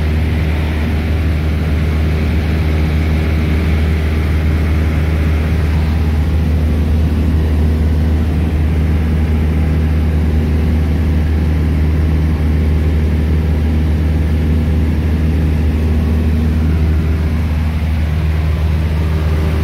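Light high-wing aircraft's engine and propeller droning steadily at cruise, heard from inside the cabin.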